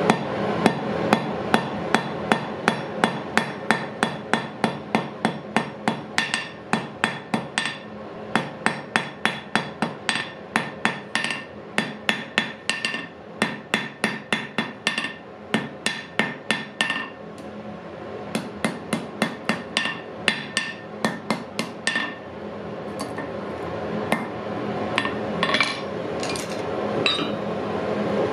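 Hand hammer striking the glowing iron of a bodkin arrowhead on a steel anvil in fast, even blows, about three a second, with the anvil ringing after each strike. The blows thin out and stop about two-thirds of the way through, a few more strikes follow, and a steady rushing noise grows louder near the end.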